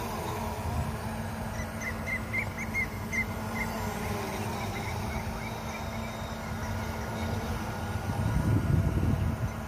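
Small folding F17 training quadcopter hovering, its propellers giving a steady buzz, with wind rumbling on the microphone, heaviest near the end. About a second and a half in, a quick run of a dozen or so short high chirps sounds over it.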